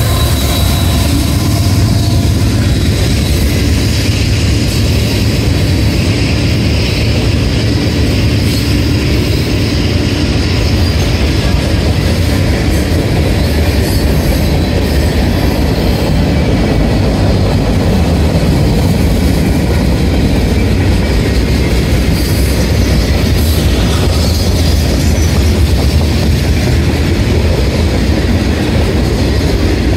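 CSX mixed manifest freight train rolling past at close range: a CSX locomotive goes by at the start, then a long string of freight cars. The steel wheels running on the rails make a steady, loud noise.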